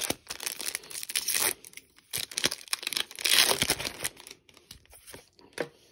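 Crinkling and tearing of a foil Magic: The Gathering booster pack wrapper as it is handled and ripped open, in several irregular bursts, the longest about three seconds in.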